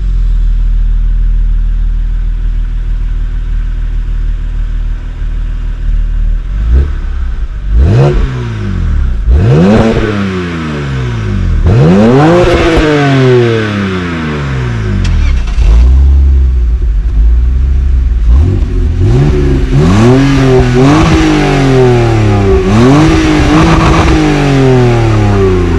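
Two BMW engines, from an E46 and an E92 330i with its N52 straight-six, idling and then revved through their exhausts. A few single revs climb and fall back from about seven seconds in, and in the last third comes a quicker string of short repeated blips.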